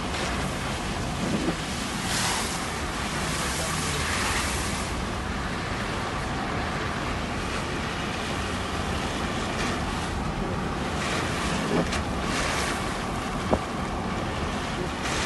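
Floodwater rushing in a steady noisy rush, with wind buffeting the microphone and a sharp click near the end.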